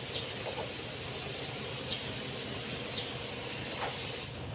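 Steady hissing noise over a low hum, the hiss dropping away about four seconds in.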